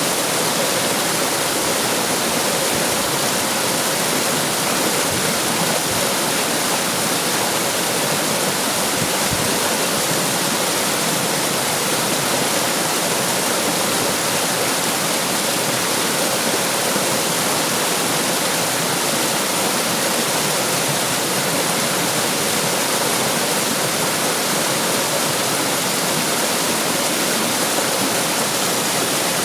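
Running water rushing and splashing steadily, the full unbroken hiss of a stream or small waterfall.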